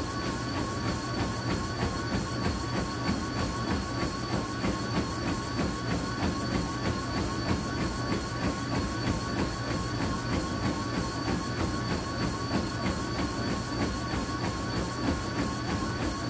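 Treadmill running at about 8.5 mph (a 7-minute-mile pace). The motor gives a steady whine and hum, and the runner's feet strike the belt evenly, about three times a second.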